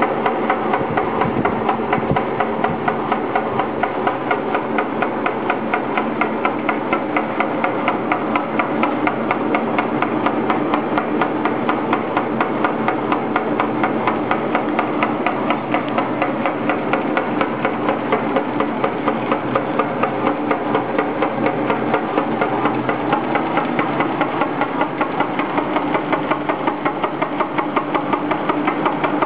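SRD320 slitter rewinder with a die-cutting station running: a steady motor hum under fast, evenly repeating knocking, several knocks a second.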